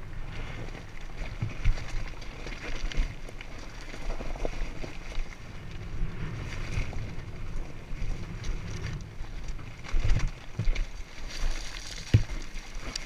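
Dirt bike rolling down a loose rocky trail: tyres and suspension clattering and knocking over stones, with rumbling wind on the microphone and a sharp knock about twelve seconds in.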